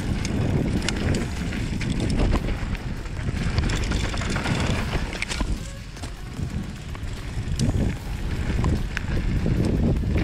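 Mountain bike ridden down a dirt trail: wind rushing over the microphone and tyre noise from the ground, with scattered clicks and knocks from the bike over rough terrain.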